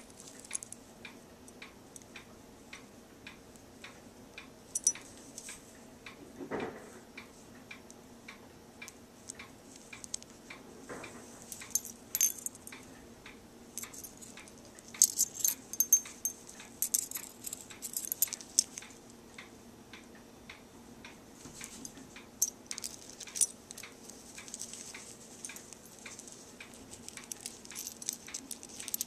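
Beads and small metal charms braided into a pirate costume wig clinking and jingling as they are handled, coming in clusters with the busiest stretch around the middle. Under it, a faint steady ticking about twice a second.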